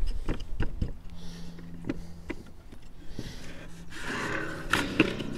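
Wooden beehive frame end bars knocking and rubbing against each other and the wooden jig as they are pushed tight together by hand: a few sharp clacks in the first couple of seconds, then a scraping rub with a couple more knocks about four to five seconds in.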